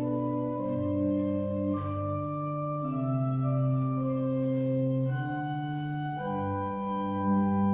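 Church organ playing slow, sustained chords that change every second or so.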